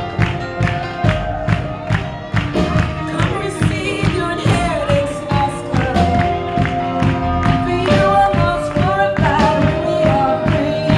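Live praise and worship band playing an upbeat song, with a steady drum beat under sustained singing voices.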